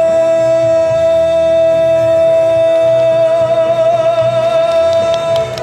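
A male singer holds one long sustained note over a backing track at the end of a sung phrase, with a slight vibrato coming in near the end. The note stops about five and a half seconds in.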